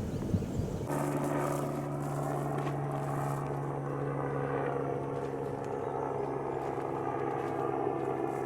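Boat engine running at a steady, even drone, cutting in suddenly about a second in.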